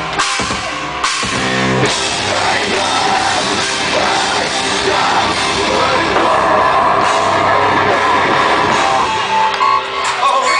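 Live heavy rock band playing loud, with a drum kit and sung or yelled vocals.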